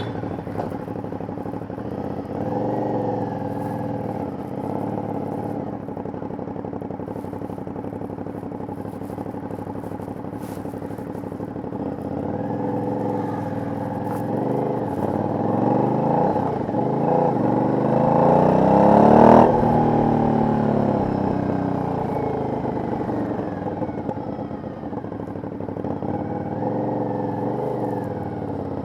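Aprilia 900 cc V-twin motorcycle engine on its stock exhaust, running steadily on the move. From about twelve seconds in it pulls harder, the pitch climbing in rising sweeps to its loudest about nineteen seconds in, then the throttle closes and the pitch falls away to a steady note again.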